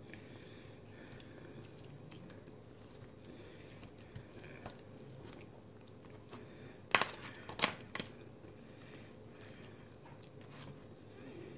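Quiet eating sounds: soft chewing, then a few sharp clinks and scrapes of a metal fork against the aluminium foil lasagna tray about seven to eight seconds in.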